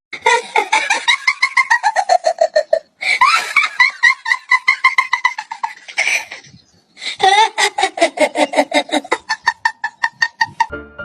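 High-pitched laughter in three long runs of rapid pulses, about ten a second, the pitch sliding down through each run.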